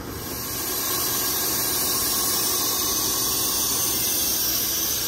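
Refrigeration vacuum pump running steadily, evacuating the truck's air-conditioning system through the manifold gauges to draw the moisture out. It is a steady, hissing run that builds up over about the first second and then holds.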